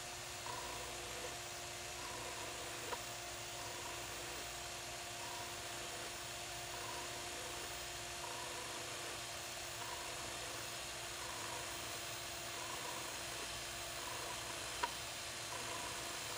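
Handheld electric power scraper running with a steady buzzing hum as it scrapes a steel lathe gib, cutting a crosshatch pattern of scrape marks. Two sharp clicks, one about three seconds in and one near the end.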